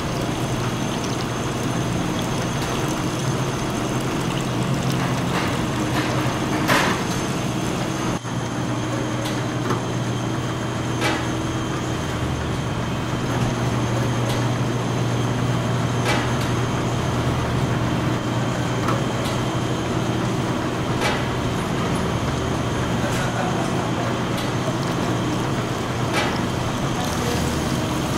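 Bottling-line machinery running: a steady mechanical hum and hiss with a sharp clack every few seconds as the filling and capping stations cycle.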